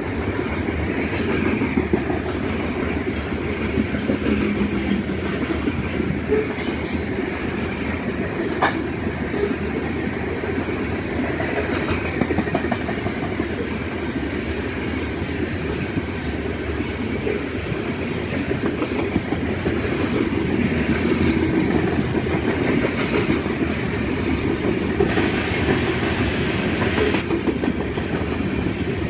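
Freight cars of a grain train rolling past at steady speed: a continuous rumble of steel wheels on rail, with occasional clicks as the wheels cross rail joints.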